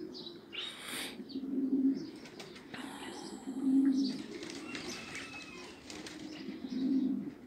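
Racing pigeons cooing, low repeated coos coming every second or two, with a brief flutter of wings about a second in.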